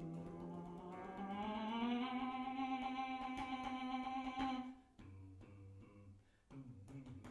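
Contemporary percussion played on car coil springs and glass bowls. A sustained, buzzy pitched tone slides upward over the first couple of seconds, holds steady, then cuts off abruptly about five seconds in. After it come quieter low tones and scattered clicks.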